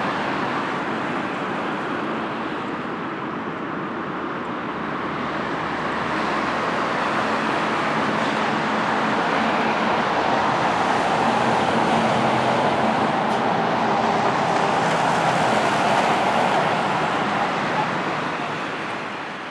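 Jet airliner engine noise: a broad, steady rush that swells to its loudest about two-thirds of the way through, then fades out at the very end.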